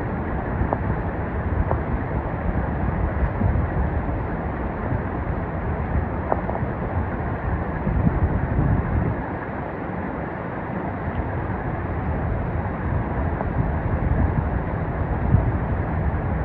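Kozjak stream's water rushing steadily, with an uneven low rumble underneath.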